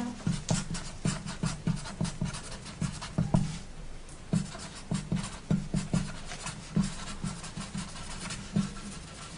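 Marker pen scratching across a photograph on a tabletop in short, irregular strokes: an autograph being signed.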